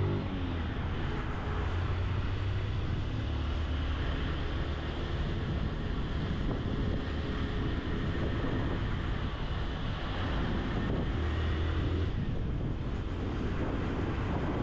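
Honda CG 160 Titan's single-cylinder four-stroke engine running steadily under load on an uphill climb, mixed with wind buffeting the microphone.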